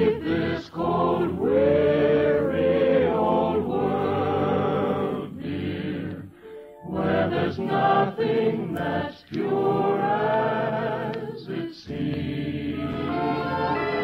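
Choir singing a melody in long held notes with vibrato, in phrases separated by brief breaths, heard through the narrow, dull sound of an old radio broadcast recording.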